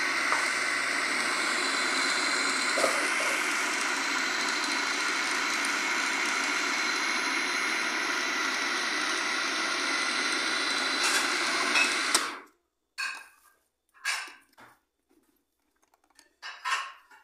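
Electric food processor motor running steadily, grinding a kibe mixture of ground beef and bulgur wheat. It cuts off suddenly about twelve seconds in, followed by three brief bursts.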